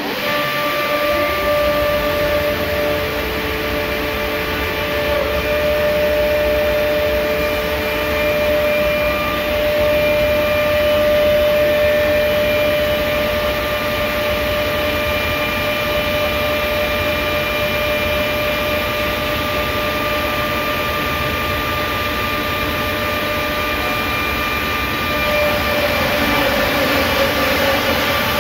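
PRINZ CUTSTAR 11 kW timber-pack trimming station's cutting unit running through its cutting cycle: a loud, steady machine noise with a steady high whine, starting abruptly at the outset.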